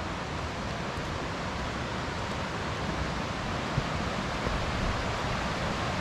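Steady rush of a mountain creek running over rocks, growing slightly louder.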